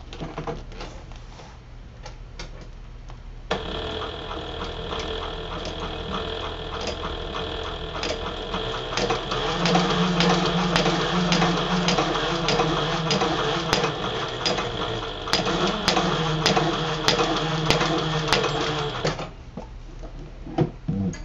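Sailrite Fabricator industrial sewing machine, run by its servo motor, stitching through a stack of ten layers of leather: rapid ticking of the needle strokes over a steady motor whine. It starts about three and a half seconds in, picks up speed, and stops a couple of seconds before the end.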